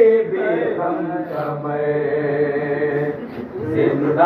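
A man's voice chanting a Muharram soz (lament) in long, held, slowly wavering notes.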